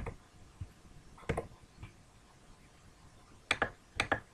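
Sharp clicks of a computer mouse: one at the start, a pair just over a second in, and two quick pairs near the end, over faint room hiss.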